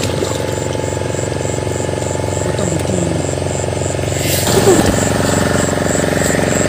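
Steady motor hum, like an engine running, with water splashing and churning from about four and a half seconds in as a man wades chest-deep.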